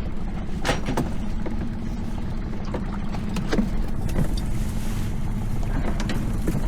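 A small boat's engine running steadily with a low hum and rumble, with a few short knocks and clicks on top.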